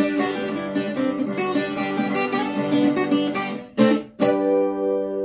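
Viola caipira (ten-string Brazilian folk guitar) played by hand: a quick, busy passage of plucked and strummed notes, then a couple of sharp strums about four seconds in and a chord left ringing.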